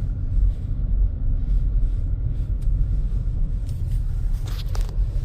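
A car driving slowly over snowy streets: steady low engine and road rumble, with a couple of brief clicks near the end.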